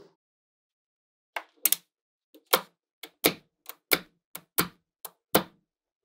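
Small magnetic balls clicking as magnet-ball panels are snapped and set into place: about a dozen sharp clicks, two or three a second, starting just over a second in.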